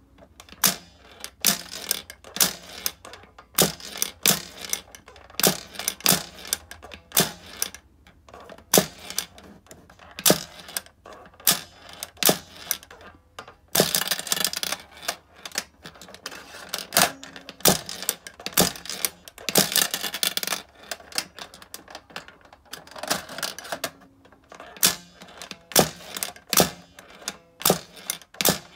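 Shōwa-era Yonezawa handheld pachinko toy being played: the spring plunger is snapped and small steel balls click and clatter off the pins and the clear plastic cover. Irregular sharp clicks, with a couple of longer stretches of dense rattling as balls run down through the pins.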